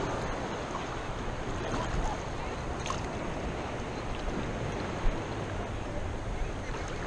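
Steady noise of wind on the microphone and surf washing on the beach, with a brief click about five seconds in.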